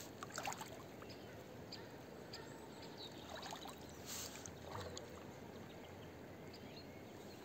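River water lapping and trickling at the bank, with a few small splashes as a tired fish is held upright in the shallows to recover before release.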